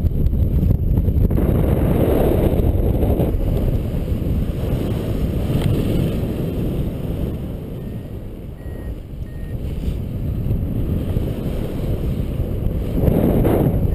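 Wind rushing and buffeting over an action camera's microphone during paragliding flight, a heavy, gusty rumble that eases for a moment about halfway through before building again.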